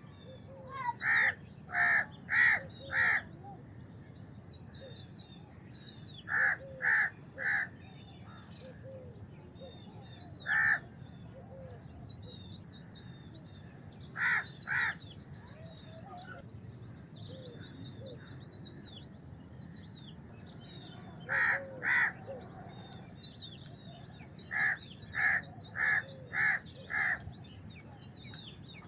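House crows cawing in short bursts of two to five harsh calls, with single caws between, over steady high chirping of smaller birds.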